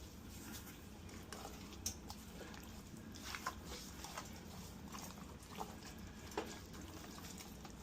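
Faint, scattered small clicks and wet taps from hands handling seasoning and food, over a low steady hum.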